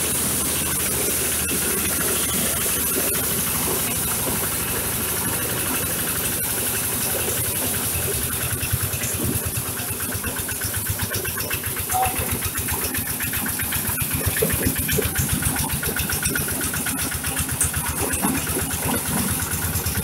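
Single-cylinder diesel engine running steadily, driving a corn husker-sheller as shelled kernels pour from its chute. Its regular throbbing beat becomes more pronounced about halfway through.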